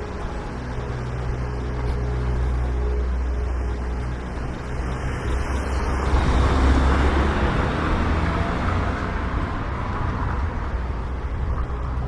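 Street traffic: a motor vehicle's engine running close by, with the traffic sound swelling to its loudest about six seconds in as a vehicle passes.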